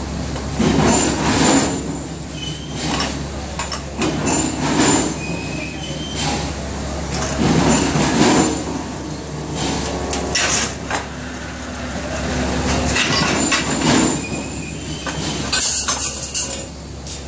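Motor-driven rotary tube-bending machine at work: a steady motor hum under repeated bursts of clatter and scraping as steel tube is bent round the die and handled. The hum cuts out about three-quarters of the way through.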